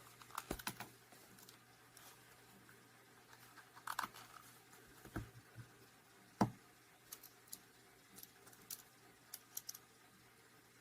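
Faint, scattered clicks and light knocks of a Victorinox Swiss Army multitool being handled, with the loudest knock about six and a half seconds in.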